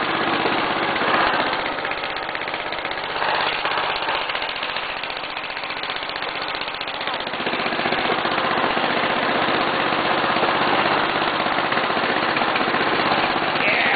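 An 11 hp Briggs & Stratton single-cylinder engine on a riding tractor, running steadily as the tractor drives along. Its level drops off for a few seconds and picks up again about halfway through.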